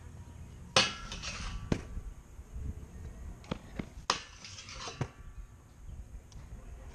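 A stunt scooter slams onto a metal grind rail and scrapes along it, twice, about three seconds apart, each a sharp metallic clank followed by about a second of ringing grind. Lighter clacks of the scooter deck and wheels on concrete come in between.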